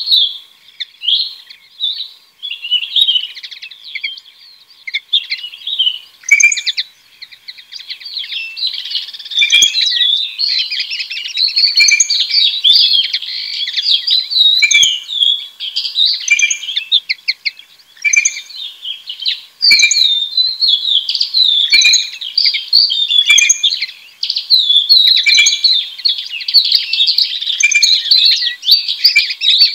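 A songbird singing close by: a long, varied, chattering run of quick chirps and whistled notes, broken by a few brief pauses, with fainter birds behind it.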